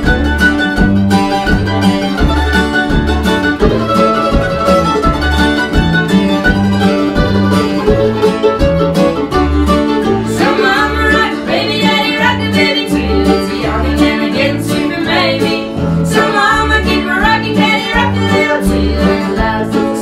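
Acoustic string band playing a bluegrass instrumental: F-style mandolin picking the lead over acoustic guitar strums and a steady upright bass pulse. About halfway through, a bowed fiddle line comes in over the top.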